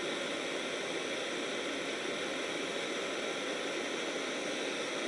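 Steady hiss of a lit handheld gas torch burning.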